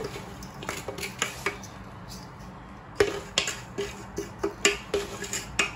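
Metal couscoussier steamer basket knocking and tapping against the rim of a stainless steel bowl as steamed semolina is tipped out, with the grains pattering into the bowl. A few scattered knocks at first, then a run of ringing taps about twice a second from about three seconds in.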